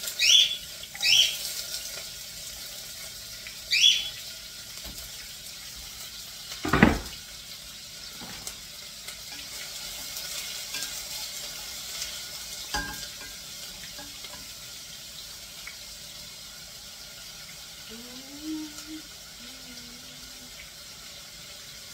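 Chopped onions sizzling steadily in a frying pan as they start to sauté. There are a few short scrapes in the first four seconds as they are pushed off a cutting board, and a loud wooden knock about seven seconds in as the board is set down, with a lighter knock later.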